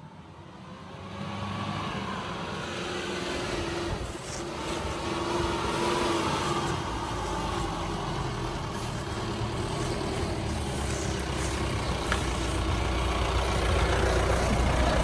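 Mahindra Bolero 4x4 pickup's diesel engine running as the truck drives up a dirt track, growing louder as it draws near.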